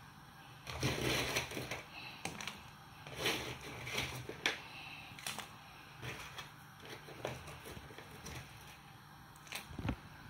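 Crab pieces in a pot of boiling salted water making irregular crunching knocks and crackles, the shells knocking against each other and the pot, over a low steady hum. The knocks come thickest in the first few seconds, then more sparsely, with one last knock near the end.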